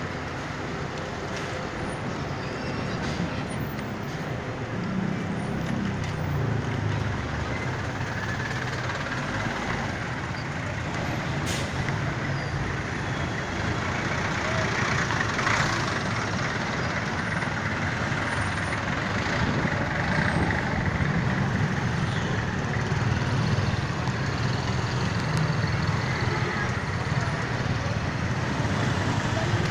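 Dense street traffic heard from the back of a moving motorcycle taxi: the motorcycle's engine and nearby bus and car engines running steadily, with a short hiss about halfway through.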